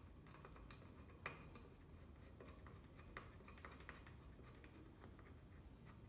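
Faint metallic clicks and ticks as a wheel bolt is turned in by hand on a 1970 Fiat 500 L's spare wheel, left loose rather than tightened. There are two sharper clicks in the first second and a half, then a run of lighter ticks a couple of seconds later.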